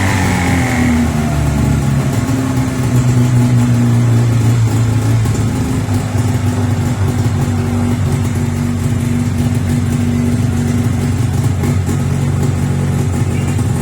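Taiga 500 snowmobile's two-stroke twin engine running steadily, just after a repair of an intake air leak that had made it sneeze and run on one cylinder.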